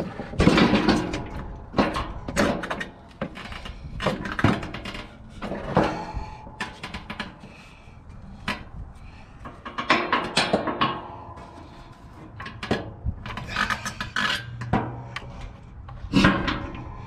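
Heavy steel snow plow push frame being manoeuvred onto the blade's pivot mounts: irregular metal clunks and knocks with scraping and rubbing of steel on steel and on the wooden pallet beneath.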